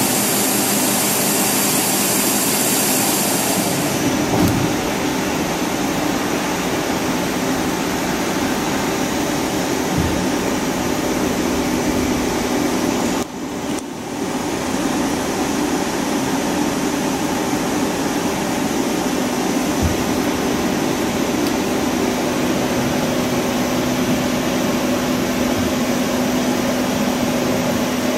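Hyundai Kia SKT-250MS CNC turning center running, its main spindle chuck spinning with a steady machine hum and whir. A high hiss sits over the first few seconds, and the sound briefly drops out about halfway through.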